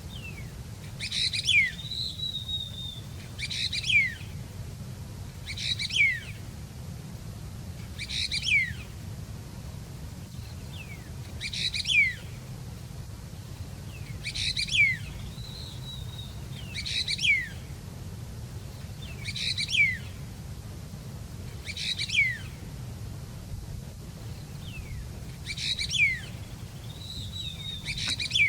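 A songbird repeating the same short chirping song phrase, about eleven times, roughly every two to three seconds, each phrase ending in quick falling notes, over a steady low hum.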